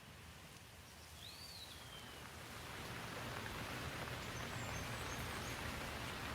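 Rain falling on leaves, a steady patter that grows heavier about halfway through. A single high bird call sounds about a second in.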